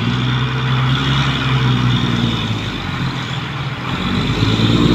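Mitsubishi truck's diesel engine running steadily under load as the truck reverses slowly, its note dipping slightly midway and rising again near the end, with a steady hiss over it. The truck is straining and, in the driver's words, not strong enough.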